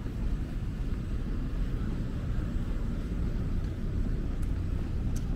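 Steady low rumble of city background noise, with a couple of faint clicks near the end.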